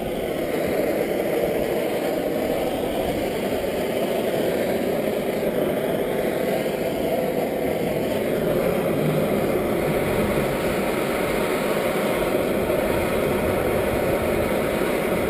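Handheld gas plumbing torch flame burning with a steady, even rushing sound.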